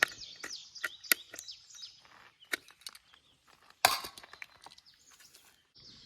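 Rifle cartridges being pressed one by one into an AR-15 magazine: irregular sharp clicks, the loudest near the start, about a second in, midway and about four seconds in. Birds chirp faintly behind.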